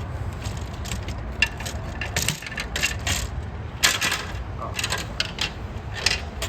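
Hard plastic toy garage parts clicking and clattering as they are handled and fitted together: many sharp, irregular clicks over a steady low background rumble.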